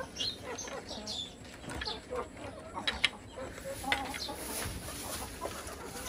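Pahari desi (Bangladeshi hill native) hens clucking and giving short calls in their pen, with a couple of sharp clicks about three and four seconds in.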